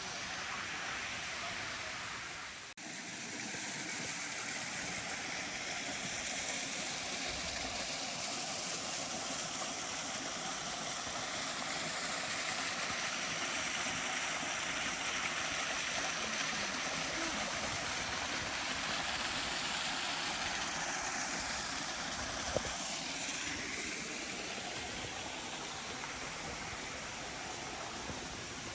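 Waterfall: falling water pouring and splashing in a steady rush, cutting out for a moment about three seconds in.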